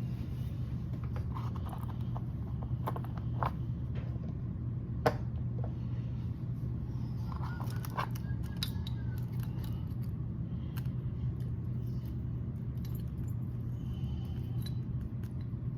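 Scattered light metallic clicks and taps of small tools and screws being handled during RC car motor mount assembly, with one sharper click about five seconds in, over a steady low hum.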